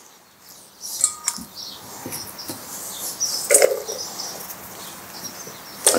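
Sliced red onion gathered off a plastic chopping board and dropped into a glass mixing bowl: soft rustling with a few sharp knocks and clinks, the loudest a little past halfway.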